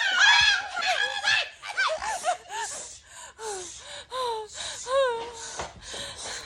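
A person gasping and laughing breathlessly: a string of short, breathy vocal sounds, two or three a second, that grow fainter toward the end.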